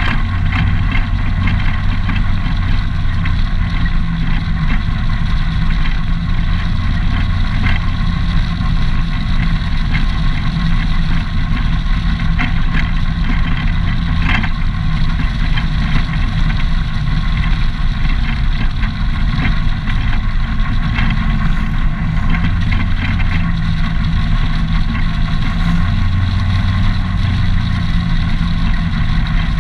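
ATV engine running steadily as the quad cruises along a gravel road, with a continuous hiss of wind and tyre noise over the engine's low hum.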